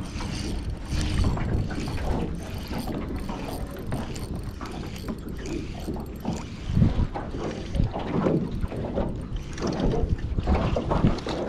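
Fishing reel being cranked, its gears giving a steady run of fine clicks as the lure is wound in.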